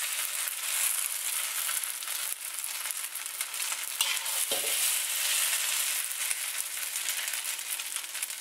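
Flat rice noodles sizzling in oil in a hot wok, with a steady hiss and the metal spatula clicking and scraping against the wok as the noodles are scooped out. One longer scrape with falling pitch about halfway through.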